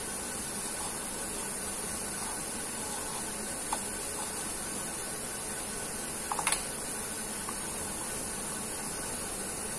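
Steady background hiss while a boiled-potato mixture is kneaded by hand in a steel bowl, with a faint click against the bowl about four seconds in and a few more about six and a half seconds in.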